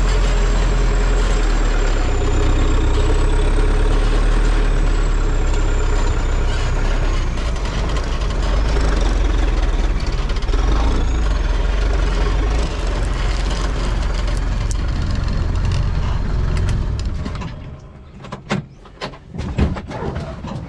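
Modified Mahindra jeep's engine running steadily under load as it crawls off-road through a deep dip in the track. About three-quarters of the way through the engine sound drops away sharply, leaving a few scattered knocks.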